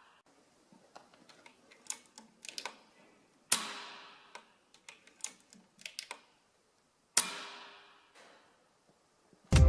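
Two shots from a PCP air rifle fitted with a homemade silencer, about three and a half seconds apart. Each is a sharp crack with a noisy tail that dies away over about a second. Clusters of small clicks fall between the shots as the rifle is reloaded.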